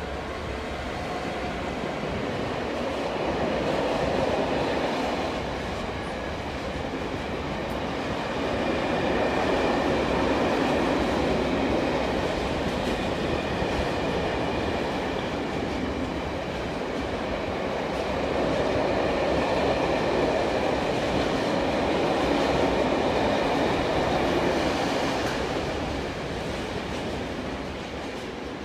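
A freight train of tank wagons, hauled by an EWS Class 66 diesel locomotive, passing through the station. Its wheels rumble steadily on the rails, the sound swelling and easing as the wagons go by, with a faint high whine through the middle.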